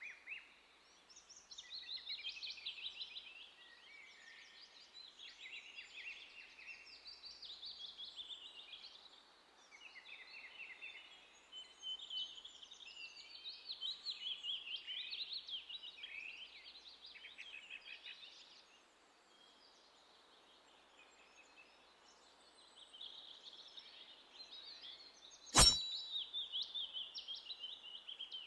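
Forest birds calling and chirping in a steady chorus, with short pauses. A single sharp knock sounds near the end.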